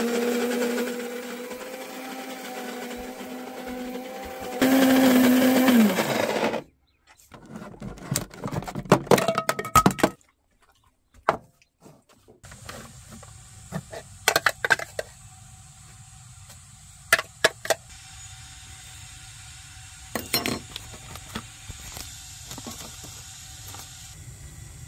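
Small electric coffee grinder running: the motor hums steadily, grinds harder and louder for about two seconds, then winds down about six seconds in. Then come a few seconds of clattering and knocking, and a quieter steady hum with scattered clicks and taps.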